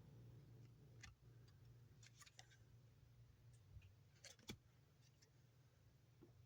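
Near silence with a low steady hum and a few faint, short clicks and taps of trading cards being handled, the loudest pair about four and a half seconds in.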